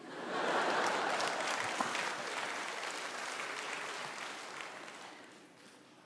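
Audience applauding, swelling quickly just after the start and dying away near the end.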